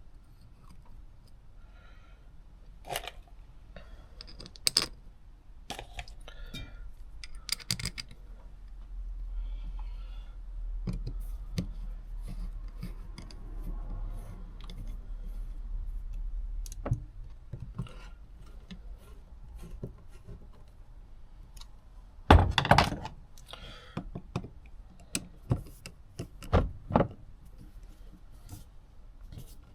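Hand tools and small metal carburettor parts being handled on a bench while the carburettor top is refitted and its screws done up: scattered light clicks and knocks, with a few louder thunks about two thirds of the way in and again near the end.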